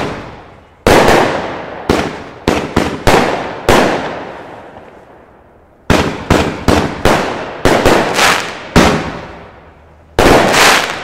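Comet Blue Night Fire firework battery, a 21-shot cake, firing: sharp bangs, each with a fading echo, in quick runs. About seven come in the first few seconds, then after a short pause about ten more follow from about six seconds in, and a last loud one comes near the end.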